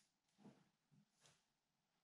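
Near silence with a few faint knocks and clicks, the loudest about half a second in and another about a second and a quarter in, from hands working on a BMX bike at the handlebar stem.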